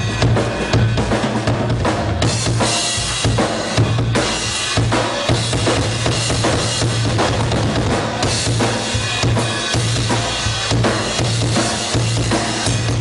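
Live rock drum solo on a full drum kit: dense bass drum and snare hits under continuously washing cymbals.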